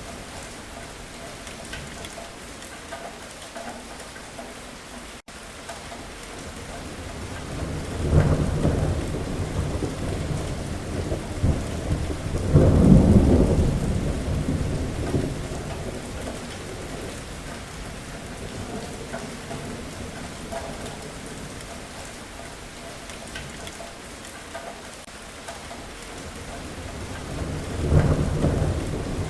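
Thunderstorm: steady rain with rolling thunder, one roll about eight seconds in, a louder, longer one a few seconds later, and another near the end.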